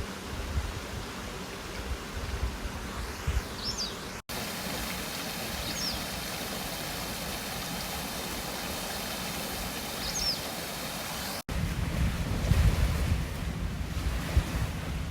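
A small bird gives three brief high chirps, spaced a few seconds apart, over the steady rush of a mountain stream. Wind rumbles on the microphone in the first few seconds and again near the end, and the sound cuts out for an instant twice.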